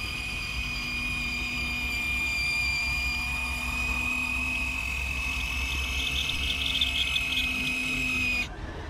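Radio-controlled scale crawler truck's electric motor giving a steady high-pitched whine, with some crackling in the second half. It cuts off abruptly near the end.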